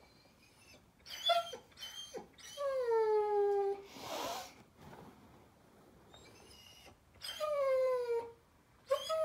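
German Shepherd puppy whining and crying in her crate at bedtime: a few short high yelps, then long whines that fall in pitch, with a breathy huff about four seconds in and another whine starting near the end.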